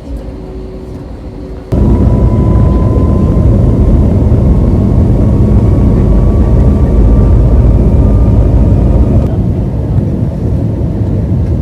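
Jet airliner engines heard from inside the cabin, a loud low rumble with a thin whine that slowly rises in pitch, as at takeoff power. The rumble comes in suddenly about two seconds in and eases a little near the end.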